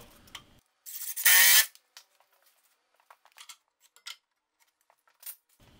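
A short, loud half-second burst from a workshop tool about a second in, followed by scattered light clicks and knocks.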